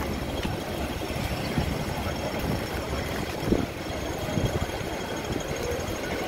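City street traffic noise, with the low rumble of a double-decker bus engine idling close by, and a brief knock about three and a half seconds in.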